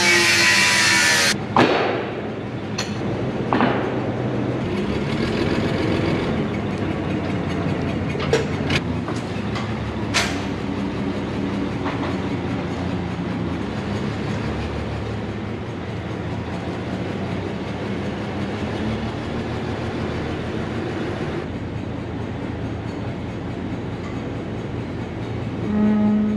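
An angle grinder cutting steel plate for about the first second, then a Hyster forklift's engine running steadily as it carries a steel plate on lifting magnets, with a few sharp metallic clanks in the first ten seconds.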